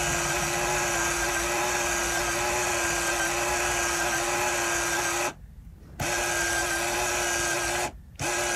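The small motor of a Casio PB-300 calculator's built-in mini printer runs with a steady whir, advancing the paper tape. It stops for under a second about five seconds in and again briefly near the end.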